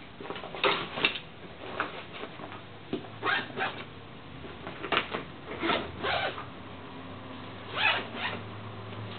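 Zipper on a nylon rifle case being pulled open in several short rasping strokes, some in quick pairs; the zipper is a cheap non-YKK one.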